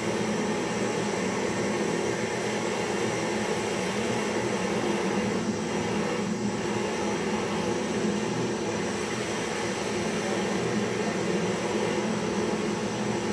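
Handheld butane gas torch burning with a steady, unchanging hiss as its flame heats a small traditional popcorn cylinder.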